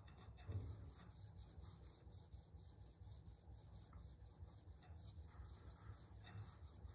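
Faint, steady run of quick rubbing strokes: a Santoku knife's steel blade stroked dry across a sharpening stone charged with 10-micron diamond resin, refining the edge and taking out the coarser 25-micron scratches.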